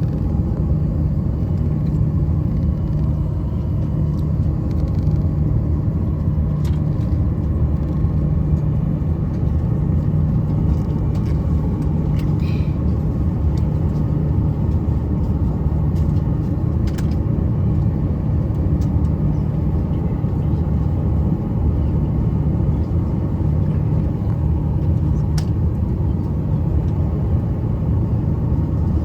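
Airliner cabin noise before takeoff: a steady low rumble from the engines and air system, with a few faint clicks.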